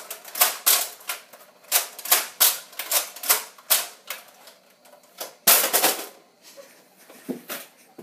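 Simulated gunfire: a rapid, irregular series of sharp pops, about three a second, with one louder, longer burst about five and a half seconds in and a few weaker pops after it.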